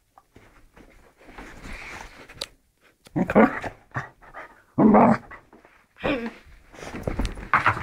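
A dog growling in play while mouthing a person's hand, in several short bursts that start about three seconds in, with bedding rustling before them.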